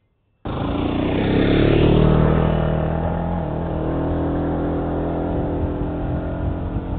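Daelim DX250 (RX3) motorcycle engine pulling away under throttle. It starts abruptly about half a second in, rises in pitch to a peak near two seconds, then eases back to a steady run.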